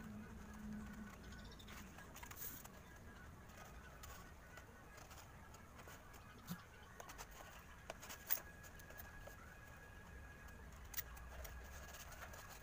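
Faint scattered clicks and light rubbing from a white foam RC plane wing being handled and worked along its aileron cut, with one sharper click a little past the middle.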